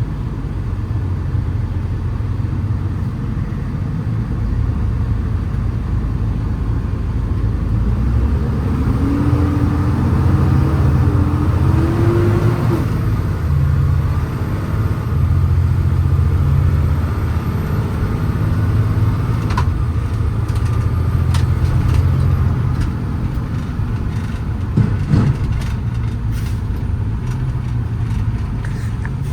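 Cummins ISL 8.9-litre diesel of a Freightliner M2 truck running under way, heard from inside the cab with a steady low drone. About eight seconds in, the engine note climbs for a few seconds, then drops. A few light knocks or rattles come later.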